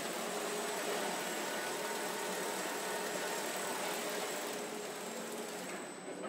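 Steady hum and hiss of car assembly-line machinery, with a few faint steady tones running through it. Near the end the high hiss drops away and the level dips briefly.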